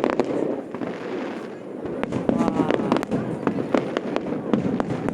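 Aerial fireworks display: a loud bang at the start, then from about two seconds in a rapid run of sharp cracks and bangs.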